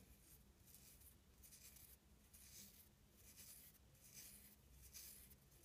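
Faint, soft rustling of synthetic ice dubbing fibres being rubbed together between fingertips, in a series of short scratchy strokes.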